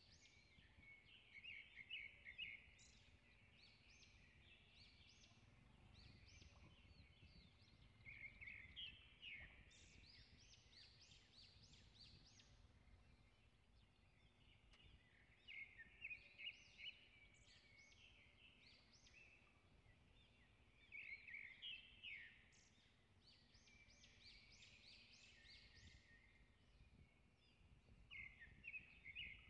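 Faint birdsong: bursts of quick, high chirping notes, about five phrases roughly six seconds apart, over a low outdoor background hum.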